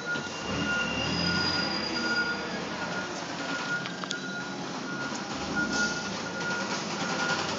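Forklift driving across a concrete floor, its warning alarm beeping steadily about twice a second over the running of the drive. A thin high squeal sounds briefly about a second in.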